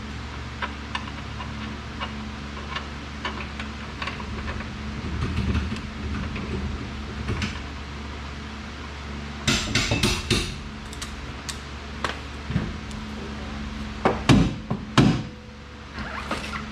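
Metal tools knocking and clanking against the car's rear suspension and strut parts: scattered light clicks at first, a quick flurry of knocks about ten seconds in, and two loud knocks near the end, over a steady low hum.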